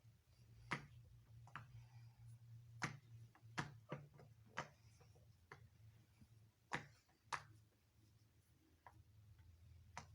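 Scattered soft clicks from a fidget toy being handled, about ten of them at irregular intervals, over a low steady hum.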